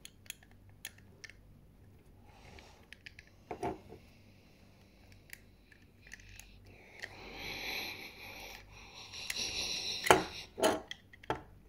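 Toy packaging being handled: scattered small clicks with two stretches of plastic-and-card rustling, and a sharper cluster of clicks and rattles near the end.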